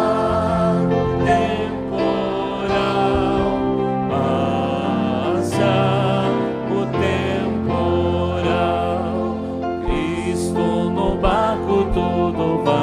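Gospel chorus sung by a man and a woman into microphones over a church band, with voices and instruments holding sustained chords.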